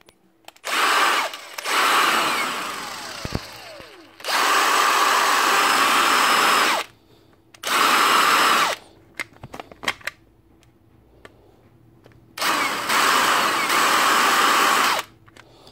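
Milwaukee M18 cordless impact driver's motor spinning free in five bursts of one to three seconds, cutting out abruptly, once winding down with falling pitch. Small clicks sound in the quiet gaps. The cutting in and out comes from an intermittent battery contact, traced to a bad solder joint on the battery terminal.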